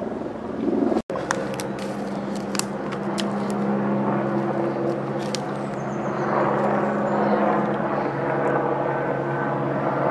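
Helicopter flying over: a steady drone of several low tones that grows louder from about six seconds in. The sound cuts out for an instant about a second in, and a few sharp ticks come over the next few seconds.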